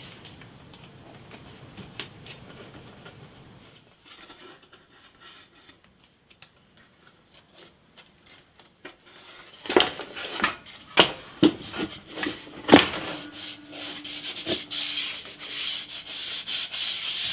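Plywood router-table board being set into its wooden frame with several sharp knocks, then slid back and forth over the frame's support plates, wood rubbing on wood, to check its fit on newly added veneer shims.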